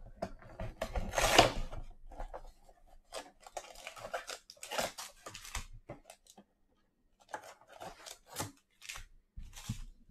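Cardboard trading-card mega box (Panini Chronicles Football) being torn open by hand. One long loud rip comes about a second in, followed by several shorter rips and rustles of the cardboard.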